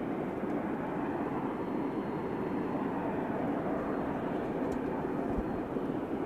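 Steady rumble of NSW 36 class steam locomotive 3642 and its train running, with no separate exhaust beats standing out. A brief low thump comes about five seconds in.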